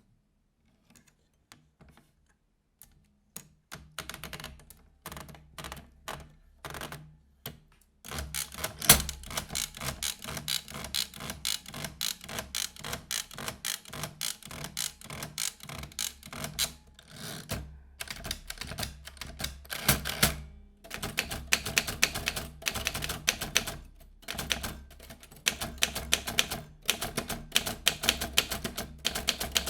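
Vintage manual typewriter being typed on: a near-silent start, a few slow, spaced keystrokes, then rapid continuous typing from about eight seconds in, broken by a few short pauses.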